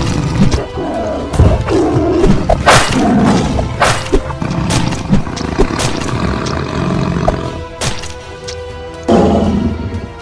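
Background music under cartoon fight sound effects: big-cat roars and repeated thuds of blows.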